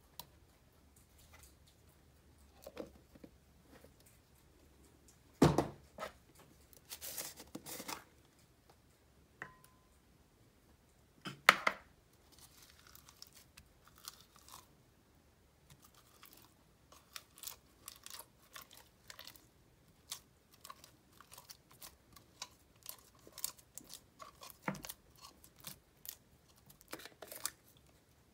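Slime being scooped and squeezed out of plastic jars into a glass bowl: sticky squelching and crackling, with two louder knocks about five and eleven seconds in and a run of small crackles and clicks in the second half, some from slime studded with foam beads.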